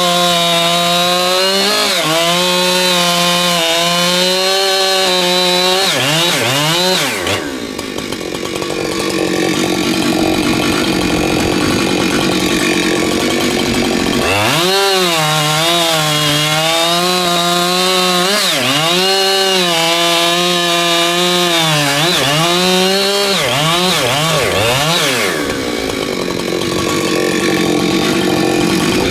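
Husqvarna 592XP, a 92 cc two-stroke chainsaw, running at full throttle. Its high, steady engine note dips and recovers several times, and twice gives way to a rougher, harsher noise as the chain cuts into wood: about seven seconds in, and again near the end.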